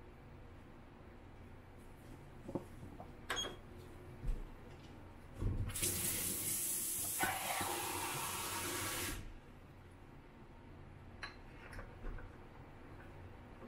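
Kitchen tap running into a stainless steel sink for about three and a half seconds, starting a little after five seconds in and shutting off abruptly. A few light knocks come before it, and faint clicks follow near the end.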